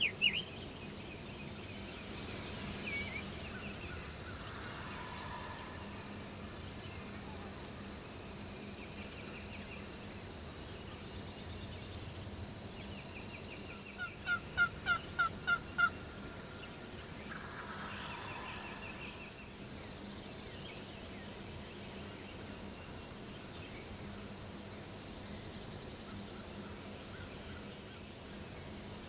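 Wild turkey sounds: a quick series of about seven sharp yelps halfway through, and one or two rattling gobbles at a distance. Small songbirds chirp throughout.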